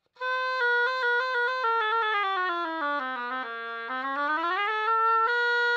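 Oboe played out of the side of the mouth, without embouchure, to check whether the reed plays flat. It plays a scale stepping down about an octave, climbs back up and ends on a held note.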